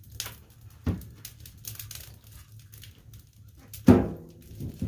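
Split firewood being loaded into an open wood stove's firebox: scattered knocks of wood against wood and iron, with the fire crackling. About four seconds in comes a sharp, loud sound with a brief pitched tone.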